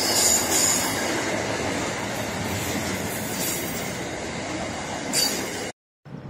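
Freight train wagons rolling past close by at speed, a steady rumble of wheels on rail with high squealing tones in the first second. The sound cuts off suddenly near the end.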